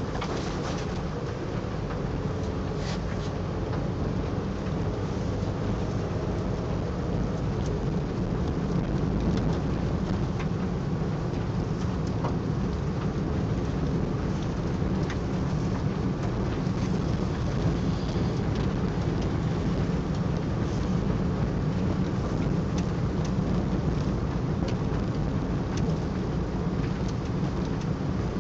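Steady low rumble of a moving car's road and engine noise heard inside the cabin, with a few faint scattered ticks.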